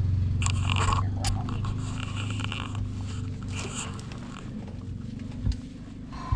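Donkey's harsh calls in three noisy bursts over a steady low engine hum, with a couple of short knocks near the end.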